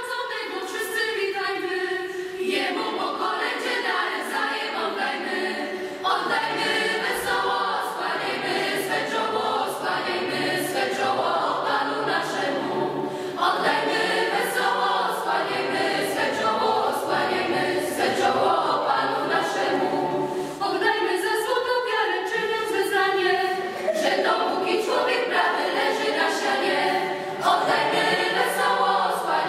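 Mixed youth choir singing a Christmas carol in several voices, phrase after phrase with brief breaks for breath.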